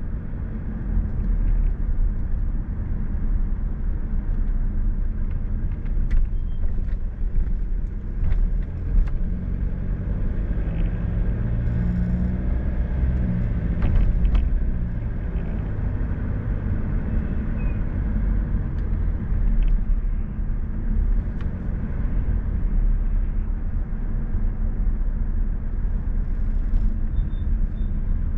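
Car driving along a road: a steady low rumble of engine and tyre noise, changing a little in pitch partway through, with a few faint ticks.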